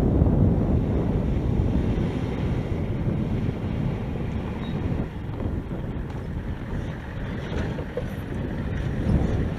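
Steady low rumble with wind buffeting the microphone, somewhat quieter about halfway through.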